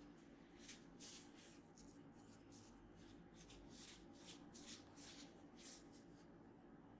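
Faint swishing strokes of hands rubbing oiled skin and hair in a massage, about two a second at an uneven pace, over a low steady hum.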